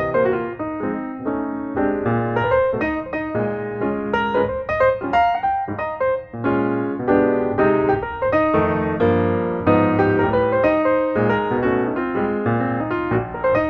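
Background piano music: a steady flow of notes.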